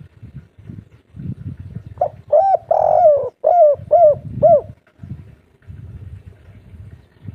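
Spotted dove cooing one song phrase about two seconds in: two short notes, a longer drawn-out coo, then three short arched coos in a row, the three-note 'kuk 3' ending.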